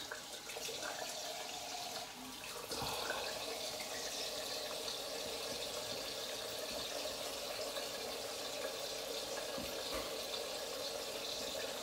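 Bathroom tap running into a sink while water is splashed onto the face to rinse after a shave. The flow grows louder about three seconds in and then runs steadily.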